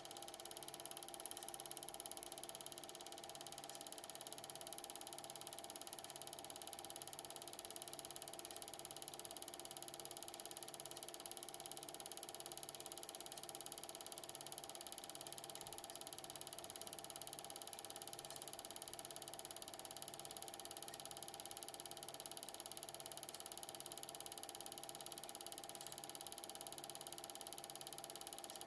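8mm cine film projector running: a steady mechanical whir from the motor and film transport, with a faint pulse about once a second.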